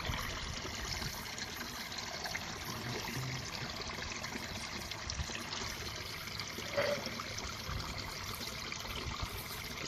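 Steady rushing background noise, like running water, with a few faint clicks of small tool accessories being handled, one about seven seconds in.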